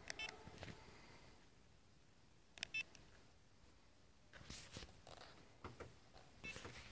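Near silence, broken by a few faint clicks and short rustling bursts.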